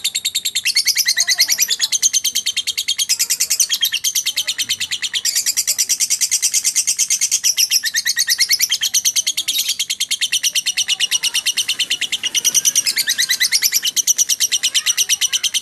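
Lovebird chattering in a rapid, unbroken run of shrill notes, many per second, without a pause: the long non-stop 'ngekek' song that fanciers call konslet.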